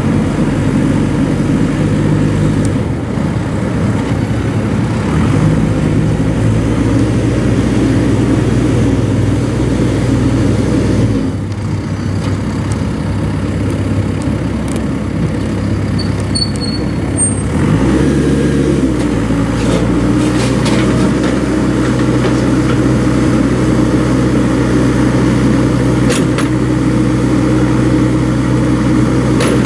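2007 Komatsu WB142-5 backhoe loader's diesel engine running steadily. Its note dips briefly about eleven seconds in, then rises again about eighteen seconds in and holds at the new engine speed.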